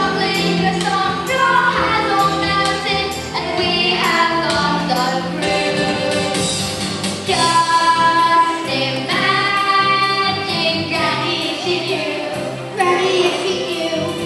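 A group of children singing a song together over instrumental accompaniment with a steady beat.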